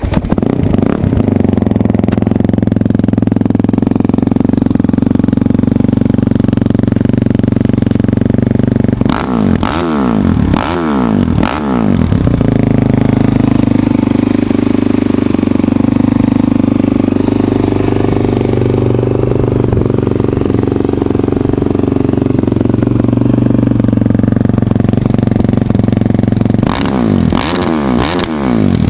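Honda CRF450X's single-cylinder four-stroke engine, breathing through a custom Blue Flame Performance exhaust (DEP header, link pipe and EVO muffler), idling loud and steady. Three quick throttle blips come about ten seconds in, and a few more near the end.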